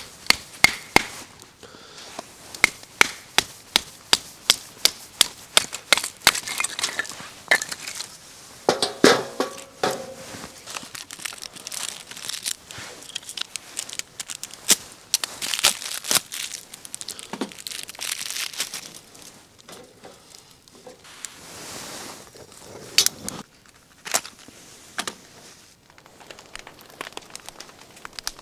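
Crinkling and crunching handling sounds with sharp knocks: a run of clicks at about two a second over the first several seconds, then irregular crackles and rustling.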